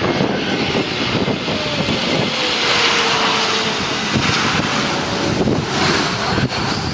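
Airliner engines running loud as an aircraft passes close by, with a faint tone that slides slowly downward.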